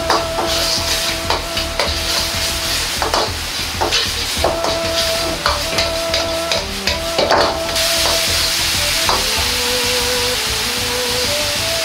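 Metal ladle scraping and knocking against a wok as tomato sauce is stir-fried and sizzles, with soft background music. After about eight seconds the knocking stops and a steady sizzling hiss remains.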